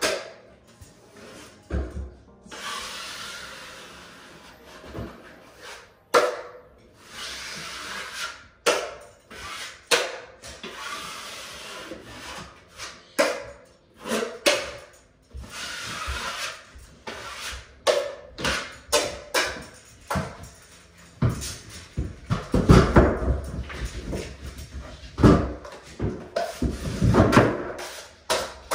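Metal drywall taping knife scraping joint compound along a paper-taped corner joint in long rasping strokes, with scattered knocks. Near the end, a run of heavier knocks and thuds as the knife is worked in the mud pan.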